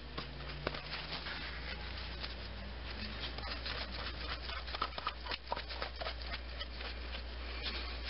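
Spin-on oil filter being screwed on by a gloved hand: an irregular run of light scrapes and clicks as the glove and filter rub and turn, over a low steady hum.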